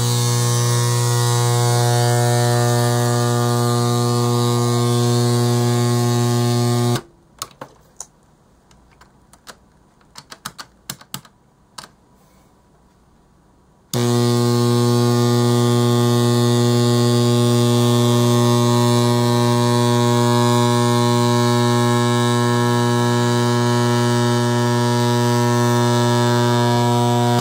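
Loud, steady electrical mains buzz with many overtones while current runs through a lapel pin clamped in a vise, heating it until it smokes and scorches. The buzz cuts off about seven seconds in, leaving a quiet stretch with a few small clicks, and comes back on abruptly about fourteen seconds in.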